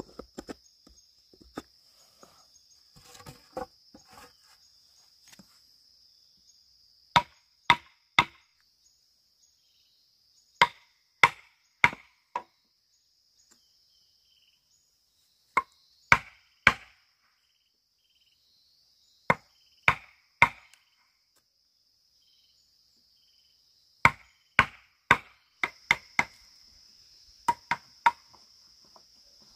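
Bamboo being chopped with a blade: sharp strokes in bursts of three or four, about half a second apart, with pauses of a few seconds between bursts. A steady high-pitched buzz runs underneath.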